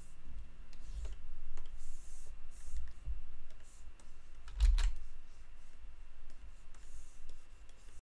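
Scattered clicks and taps of a computer keyboard and mouse in use, with the sharpest click about four and a half seconds in, over a low hum. A few brief, soft scratchy hisses come in between.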